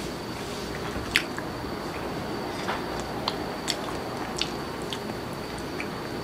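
Close-up chewing of a mouthful of Kentucky Fried Chicken with the mouth closed, with a handful of short, sharp wet crunches and mouth clicks, the loudest about a second in.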